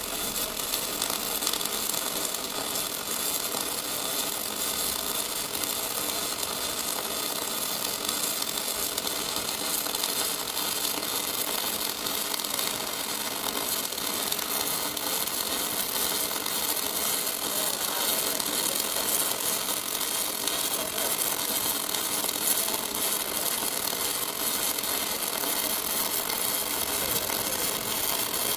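Robotic pulsed gas metal arc welding (pulsed MIG): the arc makes a steady hiss with fine crackle, unbroken throughout.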